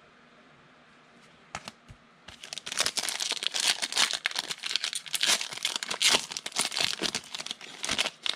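Plastic wrapper of a Donruss football card pack being torn open and crinkled: a few soft clicks, then a dense crackle starting about two seconds in and lasting to near the end.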